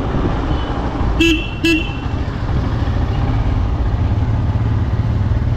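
Royal Enfield Scram 411's single-cylinder engine running steadily on the move in city traffic, with two short vehicle-horn toots about half a second apart, a little over a second in.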